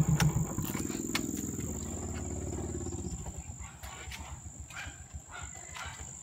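Suzuki Smash motorcycle's single-cylinder engine switched off with a click near the start; its rumble drops away and fades out over the next few seconds, leaving faint outdoor background.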